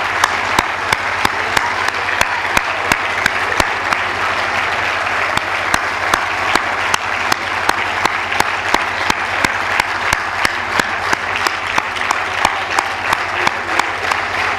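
Large crowd applauding, with sharp claps falling into a steady rhythm of about three to four a second.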